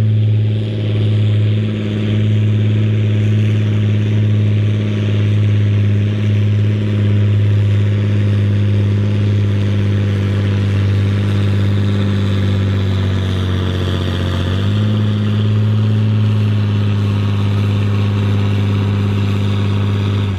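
John Deere 4640's six-cylinder turbo diesel running hard at full load, pulling a weight-transfer sled. The engine note is steady and loud, sagging a little about two-thirds of the way through, then picking back up.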